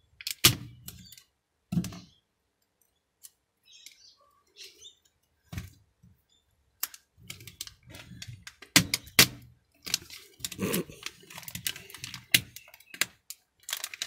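Plastic keyboard housing being pried and pulled apart: sharp plastic clicks and cracks as its plastic rivets snap and the frame flexes. A few scattered cracks at first, then they come thick and fast over the second half.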